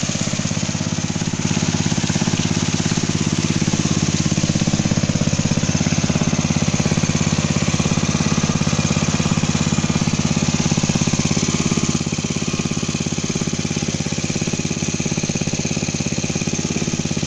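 Small petrol engine of a portable water pump running steadily at a constant speed.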